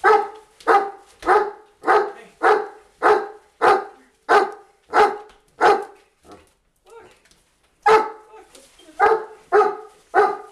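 A dog barking in a steady run, about one and a half barks a second, with a short pause about six seconds in before the barking starts again.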